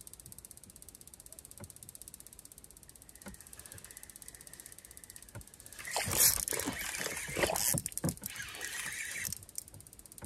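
Spinning reel at work on a fishing rod: a few faint clicks, then from about six seconds in a louder stretch of rough mechanical reel noise lasting about three seconds as a lake trout is hooked and reeled in.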